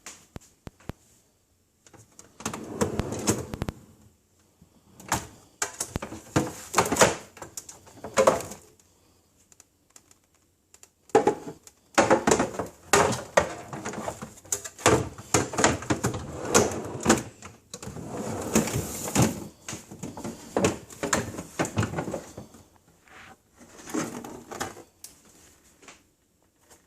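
Items being handled in a refrigerator: repeated bursts of knocking, clattering and rattling, with a longer scraping or rustling stretch about two-thirds of the way through, separated by short pauses.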